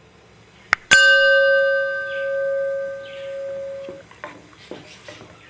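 A mouse click, then a single struck bell that rings out clearly for about three seconds and cuts off suddenly: the notification-bell sound effect of a subscribe-button animation.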